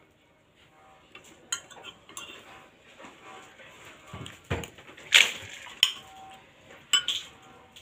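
Metal spoon and fork clinking on a ceramic plate while eating, a handful of sharp separate clinks with the loudest about five seconds in.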